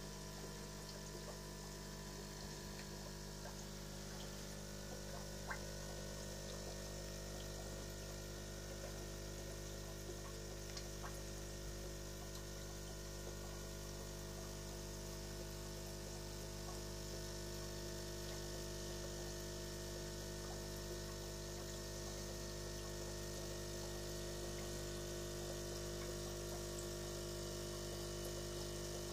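Aquarium filter pump running with a steady hum and a soft wash of circulating water, with a few faint ticks.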